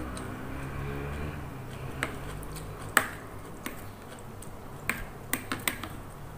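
Metal spoon and fork clinking and tapping against a bowl while eating noodle soup: about seven sharp clicks at uneven intervals, the loudest about three seconds in, with a quick cluster near the end.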